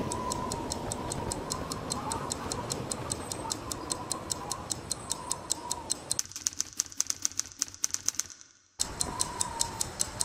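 A clock ticking rapidly and evenly, about four ticks a second, over a low steady hiss. The hiss thins out about six seconds in. The ticking breaks off for half a second near the end, then resumes.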